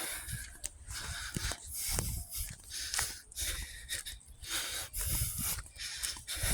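A person breathing close to the microphone, with irregular short rustling noises.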